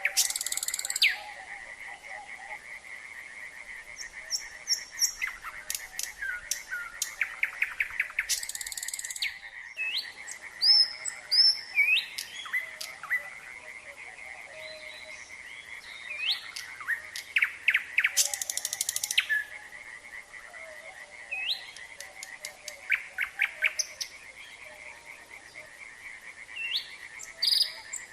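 Nightingale singing varied phrases: runs of rapid repeated notes, rising whistles and several harsh rasping bursts, over a steady chorus of calling frogs.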